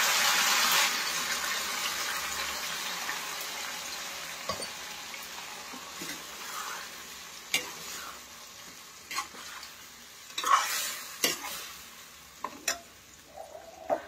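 Tomato purée hitting a hot steel kadhai of fried potatoes: a loud sizzle at the start that slowly dies down over several seconds. Then a steel spatula stirs it in, scraping the pan in several sharp strokes.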